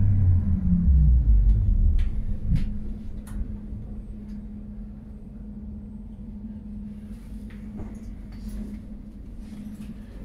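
Electric street tram heard from inside the car while it runs: a heavy low rumble with a motor whine falling in pitch over the first two seconds or so, then a quieter steady hum with scattered clicks and rattles.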